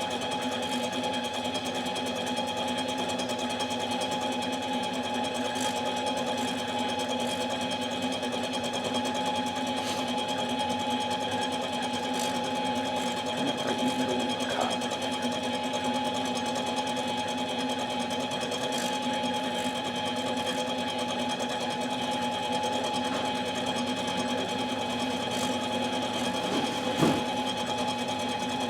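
Metalworking machine tool running steadily with a constant whine, machining a Farmertec MS660 chainsaw cylinder. There are a couple of faint clicks in the middle and near the end.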